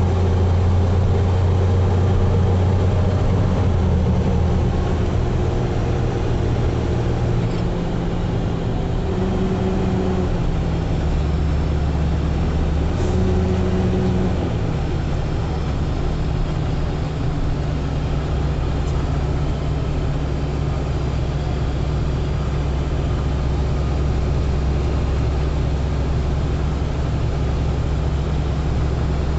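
Vehicle engine and road noise: a steady low drone whose pitch steps up and down a few times in the first half, then holds level.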